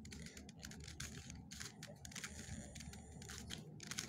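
Plastic puzzle cube being turned by hand: a run of faint clicks and clacks as its layers move.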